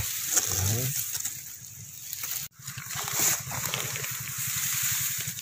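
Shallow water in a flooded rice paddy sloshing and splashing among the rice stalks.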